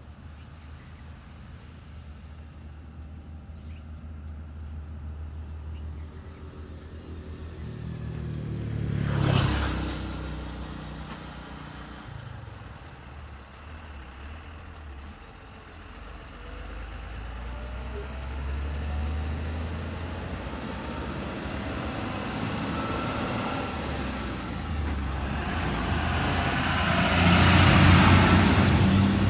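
Diesel engine of a heavy vehicle running, growing louder to a peak about nine seconds in, easing off, then building to a louder peak near the end as it comes close.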